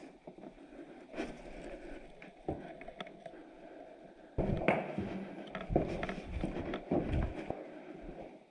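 Handling and movement noises close to a body-worn camera: scattered clicks and knocks, then about halfway a run of louder thumps and rustling.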